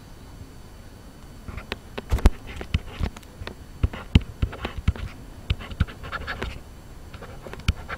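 Handwriting on a digital slide: irregular quick taps and short scratching strokes of a stylus on a writing surface, starting about a second and a half in.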